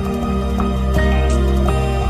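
Background music: soft new-age style with held notes over a steady bass line.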